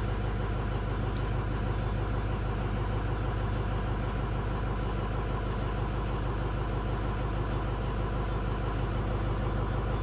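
Ford 6.0 Power Stroke V8 turbodiesel in a 2006 F-250 idling steadily after a restart, while its injection control pressure is being built up.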